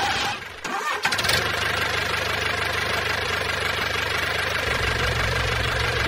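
Tractor engine starting about a second in, then running steadily with a low hum.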